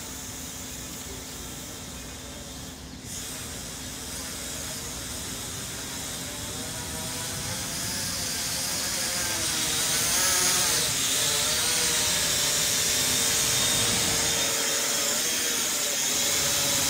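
Holy Stone HS100 quadcopter's motors and propellers whining, growing steadily louder as the drone descends toward the microphone. The whine wavers in pitch as the throttle changes.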